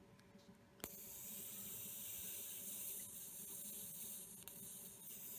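Electric arc lighter switched on with a click about a second in, its plasma arc giving a steady high-pitched hissing buzz for about four and a half seconds before it cuts off suddenly.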